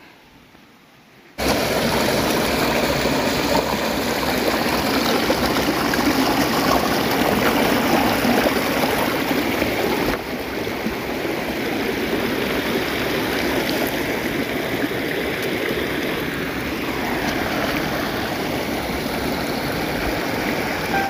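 Rushing stream: a steady, loud rush of water that cuts in suddenly about a second in, with a slight shift in tone about halfway through.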